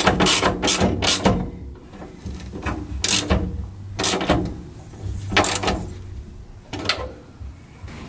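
Ratchet wrench clicking as a bolt on a bay-door strut bracket is tightened: a quick run of clicks in the first second or so, then a few separate strokes about a second apart.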